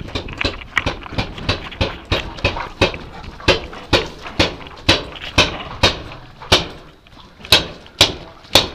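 Footsteps inside a corrugated metal culvert pipe: sharp knocking footfalls at a steady pace of about two to three a second, louder toward the end.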